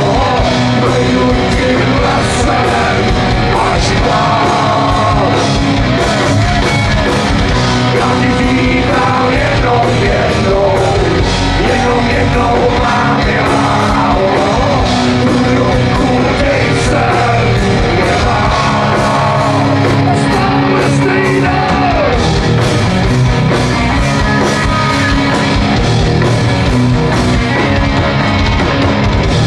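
Live rock band playing loudly over a PA, with electric guitars and a singer's voice.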